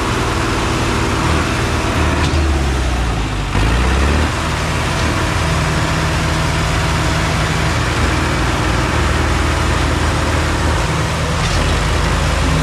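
Diesel tractor engines running loud and steady, their low note shifting about three to four seconds in.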